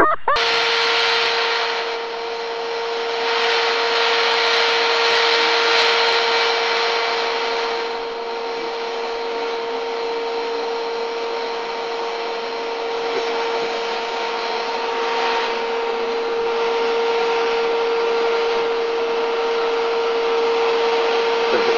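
Canister vacuum cleaner running: a steady motor whine over rushing air, swelling and easing slightly as the nozzle is worked over sofa upholstery.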